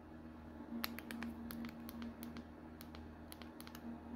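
Faint, irregular clicks and rubbing, like a handheld phone being handled, over a low, steady hum.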